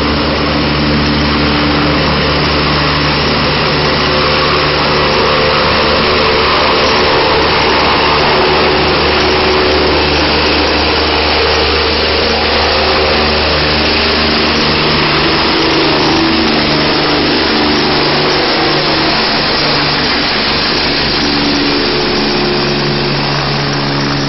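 Helicopter turbine and rotor noise, loud and steady: a rushing whine over a low hum that wavers and fades a little in the middle before strengthening again near the end.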